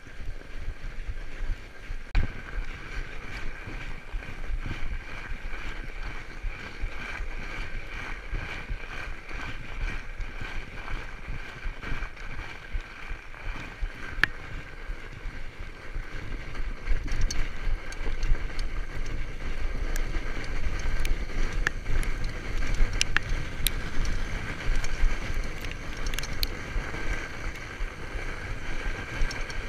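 Fatbike rolling along a packed snow trail: a steady noise from the wide tyres on snow, with low wind rumble on the microphone that grows louder about halfway through, and a few sharp clicks.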